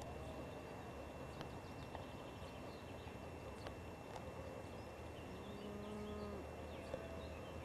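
Quiet rural outdoor ambience with faint, scattered bird chirps and one held call from a farm animal lasting about a second, a little past halfway.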